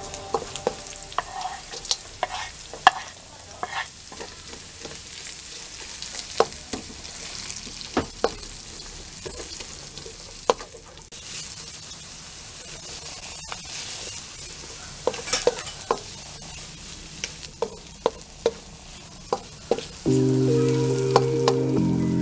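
Chilies, garlic, shallots and onion sizzling in oil in a white-coated wok, stirred and scraped with a wooden spatula, which knocks against the pan in many sharp clicks. Music comes in near the end.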